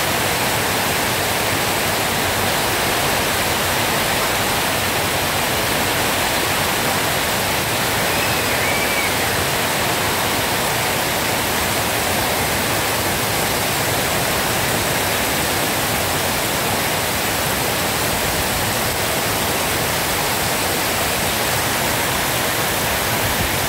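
Heavy rain falling steadily as a dense, even hiss, with a faint brief chirp about a third of the way in.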